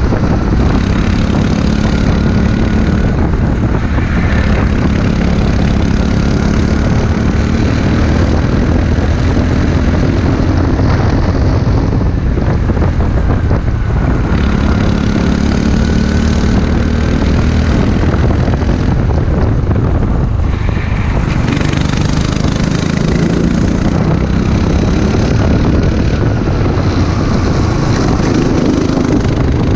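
Racing kart engine running hard through a lap, its pitch climbing on the straights and dropping away three times as the kart slows for corners.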